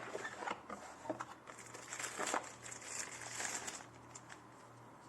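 Irregular rustling and light clicks of plastic being handled, busiest in the middle and dying away near the end, with no trimmer motor running.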